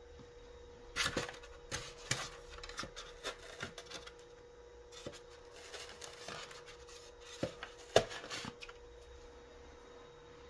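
Handling noise from crafting: irregular small taps, clicks and rubbing as cold porcelain pieces and tools are moved about on a work table, with the sharpest knock about eight seconds in. A faint steady hum sits underneath.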